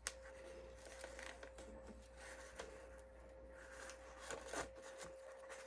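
Faint handling sounds: soft rustles and a few light clicks as baby's breath flowers and flower-press parts are handled, over a faint steady hum.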